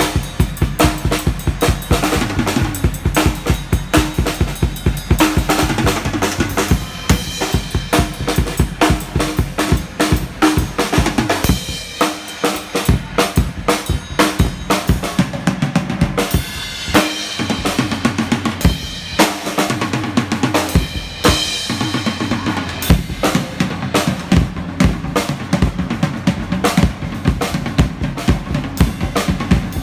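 Acoustic drum kit played live: a busy, fast groove of bass drum, snare and cymbals. The bass drum drops out briefly about twelve seconds in, then the full kit comes back.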